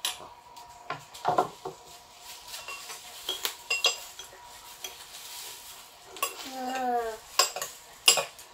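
Spoons, a ladle and chopsticks clinking and scraping against ceramic bowls and a pan as noodle soup is served and stirred: a scatter of separate light knocks.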